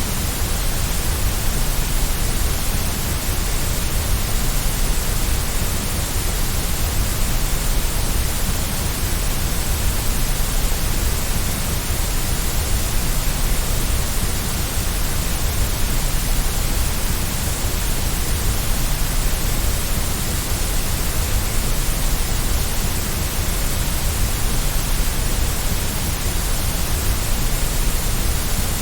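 Steady electronic noise hiss, even across all pitches with no change or events: the constant white-noise signal of a sleep and focus track.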